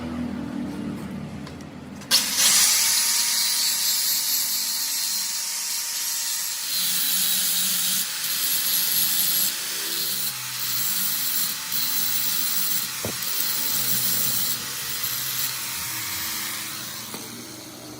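Electric arc welding: the arc is struck suddenly about two seconds in and burns with a steady crackling hiss for about fifteen seconds, laying a continuous bead, then is broken off shortly before the end.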